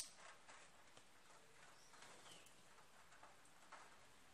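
Near silence: room tone, with one sharp click at the start and a few faint soft ticks.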